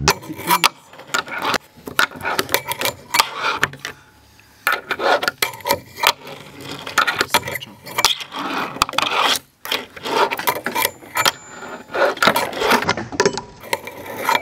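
Fingerboards clacking and scraping on a wooden miniramp and its metal rail: many short, sharp clacks of tails and wheels hitting the wood, mixed with rolling and sliding scrapes.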